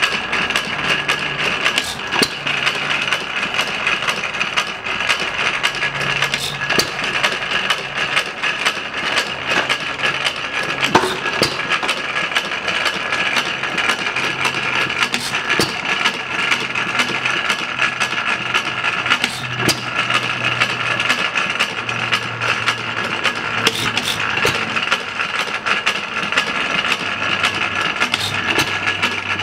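Novo vertical hit-and-miss engine with hot-tube ignition running, giving a fast, even mechanical clatter with a few louder knocks standing out.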